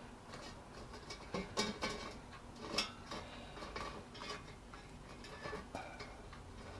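Light, irregular clicks and clinks of a utensil against the air fryer basket as hash browns are turned over.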